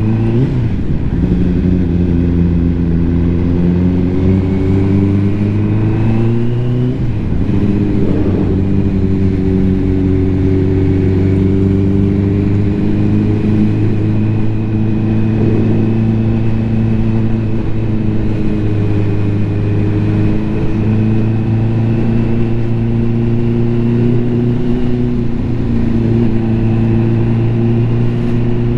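Ducati motorcycle engine under way. It rises in pitch as it accelerates, drops at a gear change about seven seconds in, then climbs slowly and holds steady. It runs without cutting out while being tested for a fuelling misfire.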